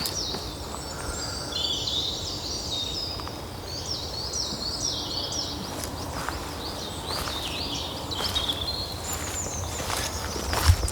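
Birds chirping over and over, short hooked calls one after another, over a steady rough background of outdoor noise. A few sharp knocks come through near the end.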